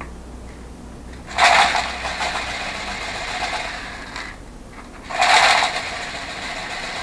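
Small pedal ball bearings rattling and swishing in degreaser inside a plastic tub as it is swirled, in two spells: one from a little over a second in lasting about three seconds, and another from about five seconds in.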